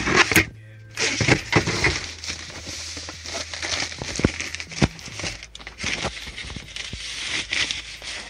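Thin plastic packaging bag crinkling and rustling as it is handled and pulled out of a cardboard box, with a few knocks.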